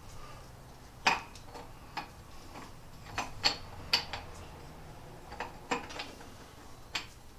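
Steel parts of an old Westcott four-jaw geared scroll chuck clicking and clinking as they are handled, with about eight irregular sharp metal clicks while a jaw is fitted into its slot.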